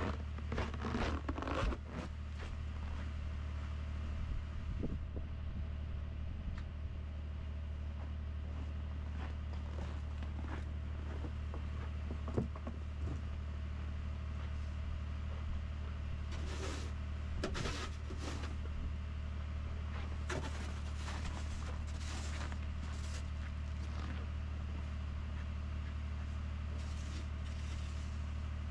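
Ford F-150 PowerBoost's 3.5-litre twin-turbo V6 idling steadily while it warms up from a cold start at −21 °C. Footsteps crunch in snow in short bursts, twice in the second half, and there is a single knock about twelve seconds in.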